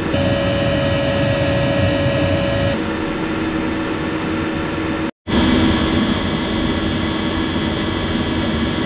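Eberspacher Airtronic 3 (Espar AS3 D2L) diesel air heater running at full power: a steady blower-and-burner noise with a hum. After a brief cut to silence about five seconds in, its fuel dosing pump is heard up close, ticking evenly over the heater's running noise.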